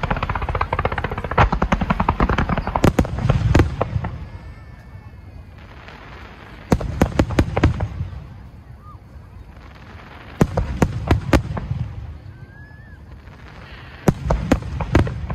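Aerial fireworks bursting: a dense barrage of bangs and crackling for the first four seconds, then three shorter volleys of shell bursts a few seconds apart.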